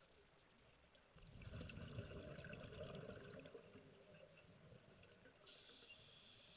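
Faint sound of a scuba diver breathing through a regulator underwater: a stretch of exhaled bubbles gurgling from about a second in, then the hiss of the next inhalation through the regulator near the end.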